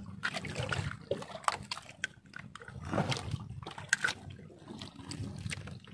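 Water sloshing and lapping against a small outrigger boat's hull, with irregular clicks and knocks as a freshly caught fish is handled and unhooked.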